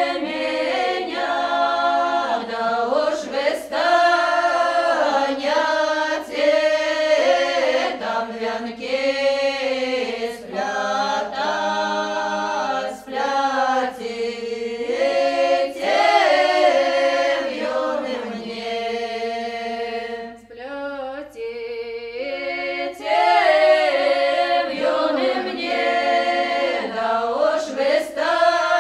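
A choir singing unaccompanied, several voices moving together in harmony in long sung phrases, with a short break about two-thirds of the way in.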